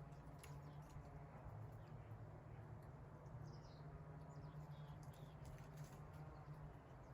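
Quiet forest ambience: a steady low hum with a few faint, brief high chirps and ticks.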